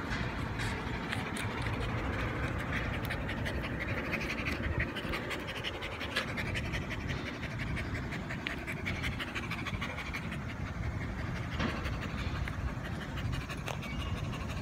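Dog panting steadily with its mouth open, breath after breath in an even rhythm.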